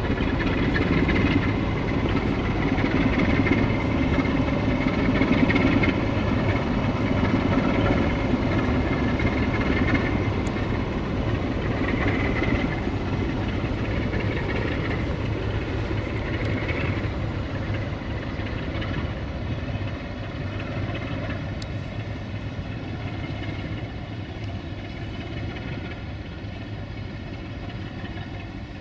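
Diesel engine of a CFR 060-DA (LDE2100) locomotive running as the locomotive moves slowly with its train, a steady engine drone that gradually grows fainter.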